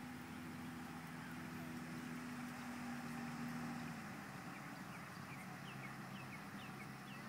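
A steady low engine-like hum over a hiss of outdoor background noise; the hum fades about four seconds in. Faint bird chirps come in near the end.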